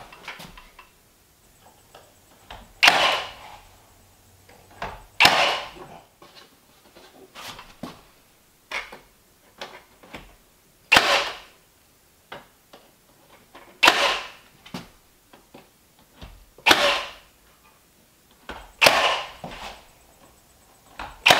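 Nail gun firing nails into wood: a sharp shot every two to three seconds, with fainter knocks between.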